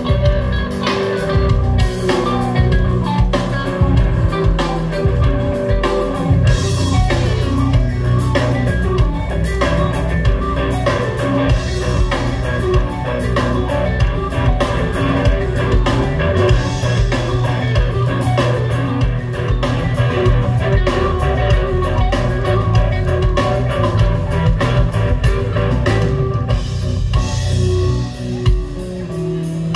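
Rock band playing live, electric guitars over a drum kit.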